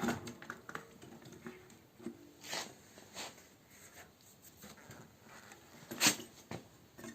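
Scattered clicks and light metal knocks of a bicycle front wheel being handled and fitted back into the fork, with a sharper knock about six seconds in.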